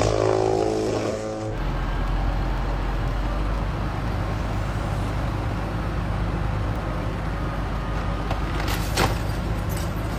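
A heavy vehicle engine running steadily with a low rumble, with one sharp knock about nine seconds in.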